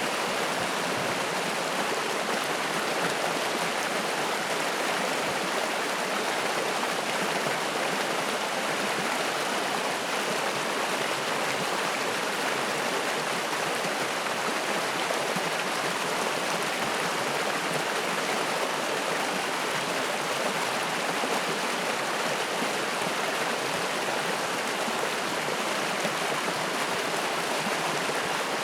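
Spring-fed mountain stream flowing, a steady rush of water with no pauses or changes.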